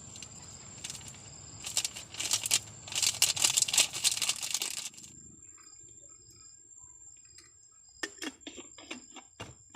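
Dense crackling and rustling for about three seconds that stops abruptly, then scattered sharp clicks and snaps near the end, over a steady thin high whine.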